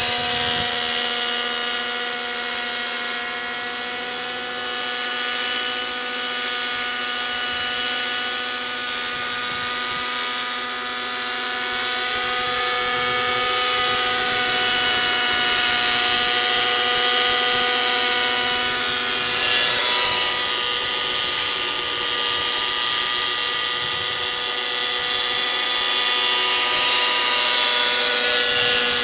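Align T-Rex 600 nitro RC helicopter in forward flight, its O.S. 55 glow engine and rotors giving a steady high-pitched whine made up of several tones. The pitch shifts slightly about twenty seconds in, and the whine grows a little louder in the middle and near the end.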